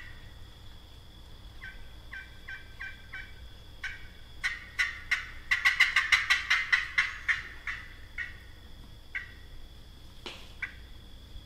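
Wild turkey calling on a turkey call: a few spaced yelps, then a fast run of notes about six to eight a second that builds to its loudest and fades out, in the manner of a turkey-calling contest run.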